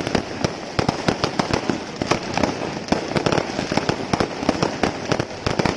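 Aerial fireworks display: many shells and multi-shot cakes bursting at once, a dense, continuous run of sharp bangs and crackles several to a second with no pause.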